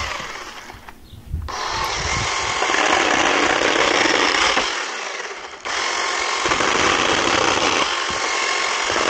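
Ryobi RY18CS20A 18-volt cordless compact chainsaw cutting through pallet boards. The motor winds down over the first second, starts again abruptly, then cuts out briefly about halfway through and restarts.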